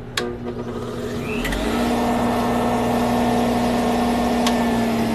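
Centrifugal juicer's electric motor running as ginger is juiced. A sharp click comes just after the start. About a second and a half in, the motor rises in pitch to a steady, loud hum.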